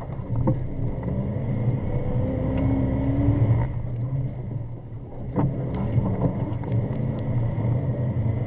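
Jeep Grand Cherokee engine running hard, heard from inside the cabin, its pitch rising and falling as the driver works the throttle over rough sandy track. Three sharp knocks from the body and suspension over bumps, the loudest about five and a half seconds in.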